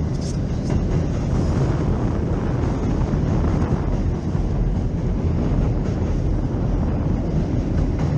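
Gusty wind buffeting the microphone: a steady low rumble.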